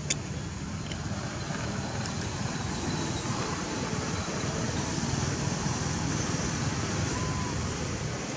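Steady outdoor background noise, a low rumble with an even hiss, with one sharp click just after the start.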